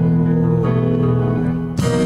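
A live band plays the instrumental intro of a slow song, led by sustained guitar chords. A new chord is struck near the end.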